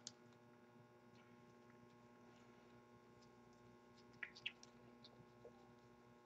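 Near silence: a faint steady electrical hum, with a few soft clicks of trading cards being handled about four seconds in.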